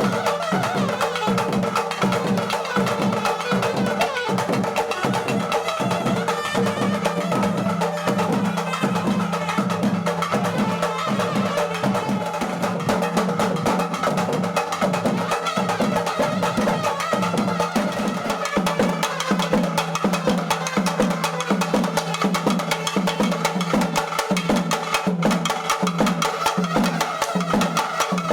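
Music with a quick, steady drum rhythm under a few held notes.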